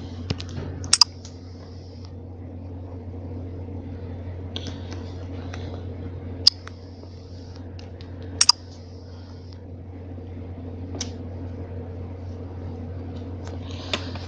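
A few sharp clicks at a computer, the first and third a quick pair each, spaced several seconds apart over a steady low hum.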